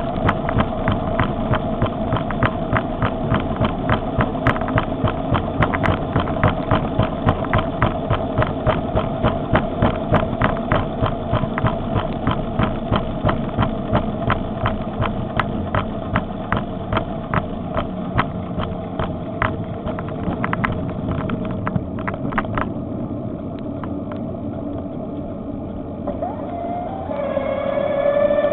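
Electric bicycle riding on a paved road: a steady whine over a rumble, with a sharp regular tick about three to four times a second that slows and stops a little over two-thirds of the way through. Near the end a louder squeal with several pitches comes in.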